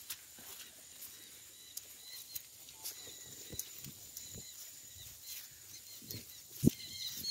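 Irregular footsteps on wet grass and muddy ground, with a louder thump near the end, over a faint steady high tone and a few short chirps.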